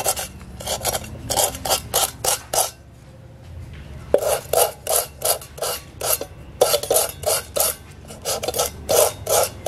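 Sandpaper scrubbed back and forth over the hole in the bottom of a metal cooking pot, a rasping scrape of about four strokes a second that pauses briefly near the middle. The surface around the hole is being roughened so that a patch will stick more firmly.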